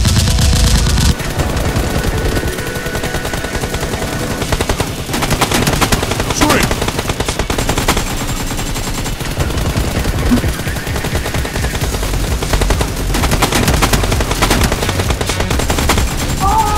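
Rapid automatic gunfire sound effects, shot after shot in long bursts, dubbed over Nerf blasters being fired; loudest in the first second.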